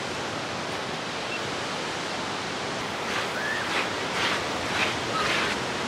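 Steady rush of ocean surf breaking on the beach, mixed with wind. From about three seconds in, a series of short, sharp sounds about twice a second rides over it.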